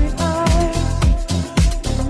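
Upbeat background music with a steady beat, about two drum strokes a second, and held melody notes over it.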